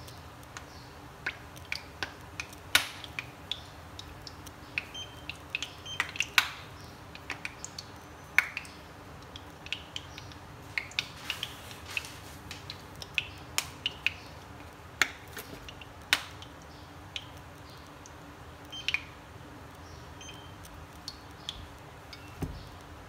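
Cooking oil heating in a nonstick frying pan, crackling and spitting with irregular sharp pops, which the cook takes to mean the oil is not yet hot enough for frying. A dull knock comes near the end.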